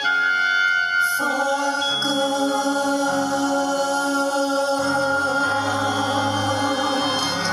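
Several voices singing in harmony, holding long sustained notes over orchestral accompaniment as a musical-theatre ballad closes. The chord moves to new held notes about a second in and again near five seconds.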